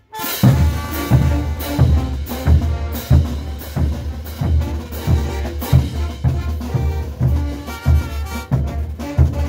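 Brass band playing a morenada: bass drums, snare drums and crash cymbals beating a slow, heavy rhythm, about three beats every two seconds, with brass notes over it. The drums come in after a brief break right at the start.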